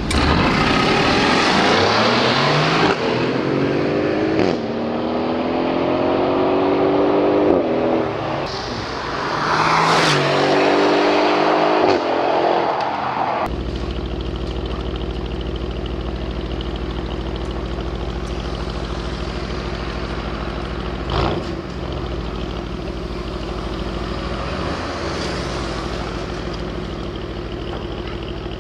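Aston Martin Vantage's twin-turbo V8 accelerating hard through the gears, its pitch climbing and dropping back at each upshift. About halfway through it changes abruptly to a steady, even engine drone.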